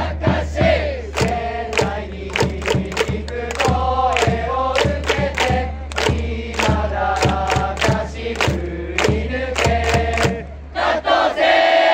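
A large baseball cheering section sings a batter's cheer song in unison, led by trumpets over a steady drum beat of about two to three strikes a second.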